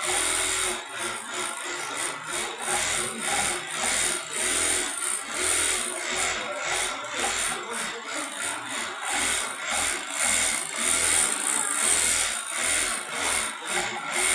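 Automatic pattern sewing machine running, its needle stitching through thick quilted cotton fabric in a template while the frame moves under the head; a steady mechanical din that pulses unevenly a few times a second.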